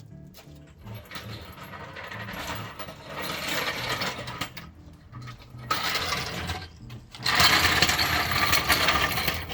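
Metal jack being moved into place, rattling and clattering in stretches, the loudest near the end, with background music under it.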